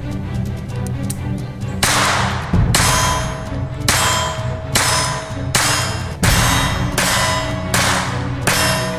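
Action-style music track: a steady low drone, with about eight heavy ringing metallic clangs from about two seconds in, roughly one a second.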